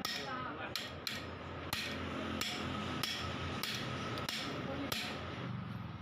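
Hammer striking metal in evenly paced blows, about nine of them, roughly one every two-thirds of a second, with a metallic ringing between strikes, as parts are knocked into place while a power tiller's engine is being refitted.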